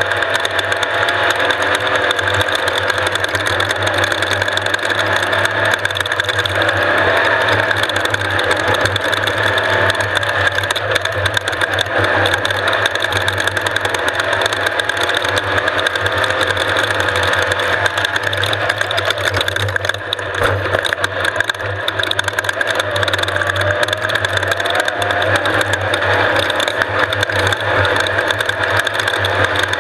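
Off-road race vehicle's engine running at a steady, unchanging pitch, with a brief dip in level about two-thirds of the way through.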